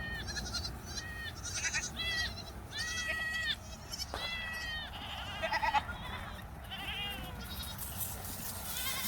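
Goats bleating: a string of short, high calls in quick succession.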